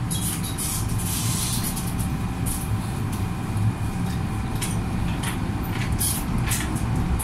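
MTR M-Train electric multiple unit heard from inside a car as it pulls out of a station and gathers speed: a steady running rumble with a faint whine, and several brief hisses and clicks.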